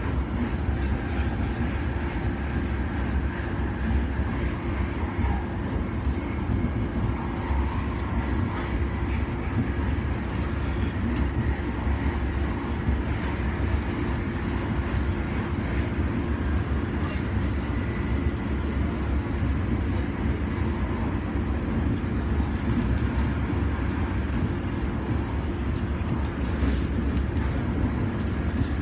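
Gautrain Bombardier Electrostar electric train heard from inside the carriage while running at speed: a steady low rumble of wheels on rails, with a constant hum.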